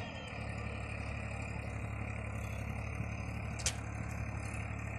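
Farm tractor's diesel engine idling with a steady low hum. A single short sharp click sounds about three and a half seconds in.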